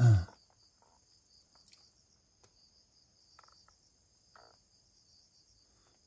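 Faint, steady, high-pitched insect chirring, pulsing finely, in a pause between spoken sentences.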